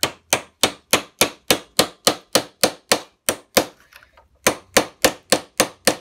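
Hammer striking a steel punch set in the notch of a 7-speed bicycle freewheel's outer bearing cone, to knock the threaded cone loose. The strikes are sharp metal-on-metal taps at a steady pace of about three a second, with a short pause around four seconds in before they resume.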